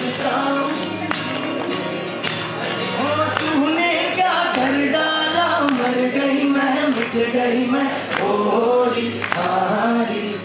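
Live song: a man singing a melody into a microphone over a strummed acoustic guitar.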